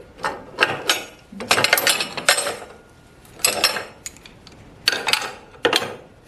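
Metal clanking and scraping in several short, irregular bursts as steel clamps and metal parts are handled and fitted.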